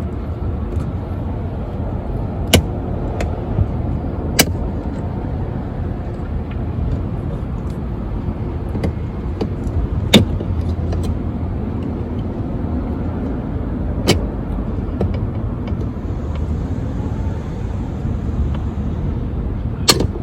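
Sharp plastic clicks and snaps, a handful spread out, the loudest about ten seconds in, as a BMW F30's interior door-handle trim is pried loose from its clips, over a steady low rumble.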